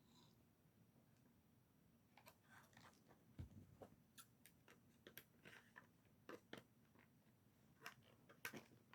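Faint, scattered clicks and crinkles of product packaging being handled and opened.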